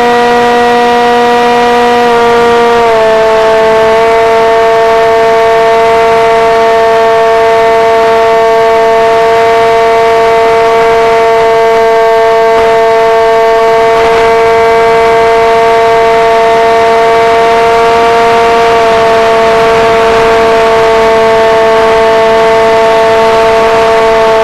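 Multiplex Shark RC plane's electric motor and propeller whining steadily in flight, picked up close by the onboard camera along with wind rush. The pitch drops a little about two to three seconds in and again about three quarters of the way through as the throttle eases.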